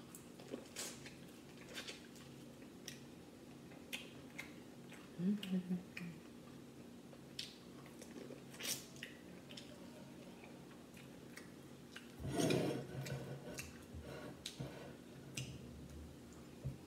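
Close-up biting and chewing of corn on the cob, heard as scattered small crunchy clicks. A short hummed sound comes about five seconds in, and a louder noisy stretch about twelve seconds in.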